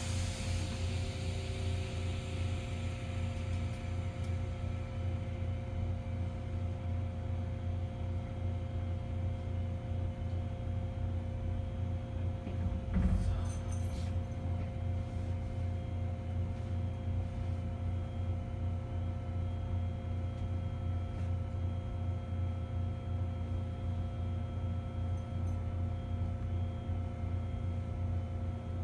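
Steady hum of a stationary electric train's onboard equipment, several constant tones over a low drone. A short low thump about 13 seconds in.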